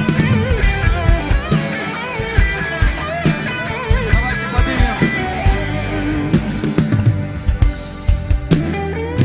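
Church worship band music playing, with guitar, a drum kit and a wavering lead melody.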